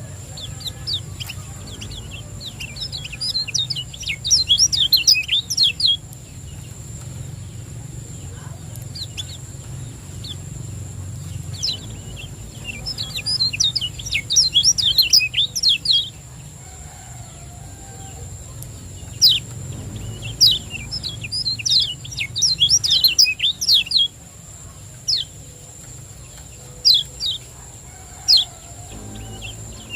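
Kecial kuning white-eye singing: rapid, high chirping phrases in bursts of a few seconds, three times, with single chirps between them. A steady high whine and a low hum run beneath the song.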